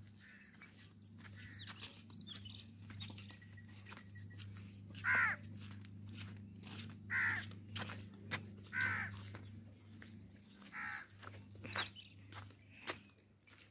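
Crows cawing, four or five short caws a second or two apart, the loudest about five seconds in, with small birds chirping early on. Footsteps on a brick path tap along underneath.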